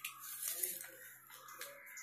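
Sheet of paper rustling and crinkling in the hands as a folded origami paper boat is pulled open, with a few short crackles.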